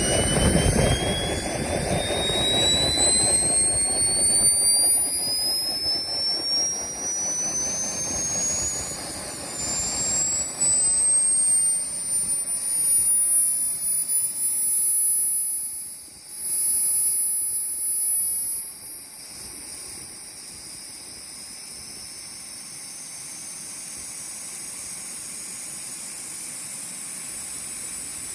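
Model turbojet engine (IQ Hammer 90+) running on a test run: its high turbine whine climbs steadily in pitch as it spools up, levels off for a few seconds midway, then rises again. A heavy low rumble at the start dies away after about four seconds, leaving a steady rushing hiss under the whine.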